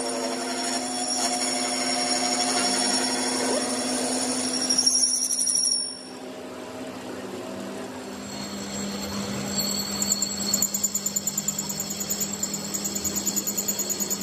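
A machine running steadily with a constant hum; about six seconds in it drops in level and settles to a slightly lower hum that pulses rapidly near the end.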